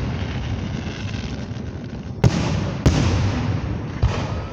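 Fireworks going off: a continuing rumble and crackle, with two sharp booms about half a second apart a little past two seconds in, and another near the end.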